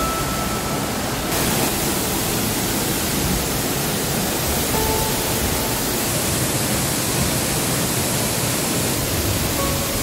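A tall waterfall heard up close: a loud, steady, even rush of falling water with no breaks.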